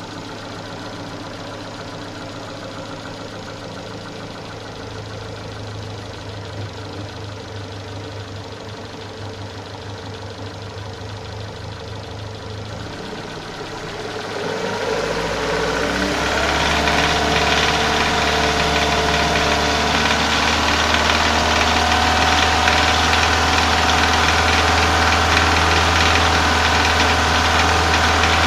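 Renault K4M 1.6 16-valve petrol engine idling, then revved up about halfway through and held at a steady higher speed. At that steady speed a knock like pinking from bad petrol appears, which the owner hears only at a fixed 2000–2500 rpm with the throttle held still.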